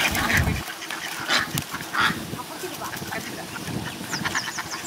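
White domestic ducks quacking harshly as they are grabbed and lifted by hand, with water splashing around wading legs near the start.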